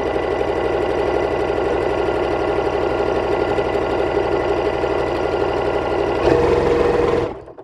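Janome Continental M7 sewing machine stitching a straight seam at high speed, a steady fast needle rhythm. Near the end it grows louder and its note changes, then it stops.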